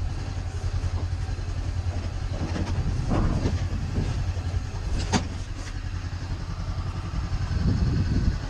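Honda CB500X parallel-twin engine running at low revs, off the throttle, as the bike creeps over rough dirt track. Two short sharp knocks come about three and five seconds in, and the engine picks up a little near the end.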